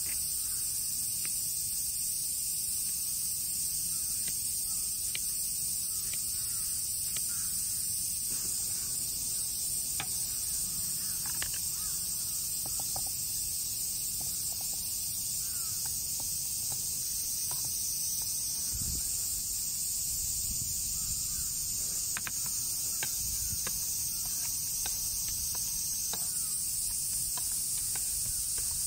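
A steady, high-pitched chorus of insects droning throughout, with faint scattered taps and clicks of a knife on a wooden cutting board and diced peach being handled.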